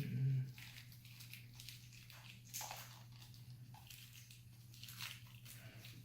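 Faint, scattered crinkling and crackling of thin protective plastic being peeled off a collectible action figure, over a steady low hum.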